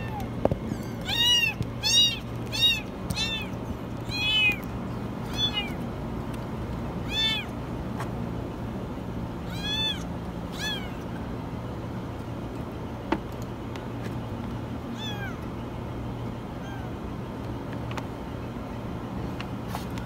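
A kitten trapped inside a washing machine meowing repeatedly in short, very high cries, each rising and falling in pitch. The calls come thick and fast at first, then grow sparse and fainter. A steady low hum runs underneath, and there is one sharp click about 13 seconds in.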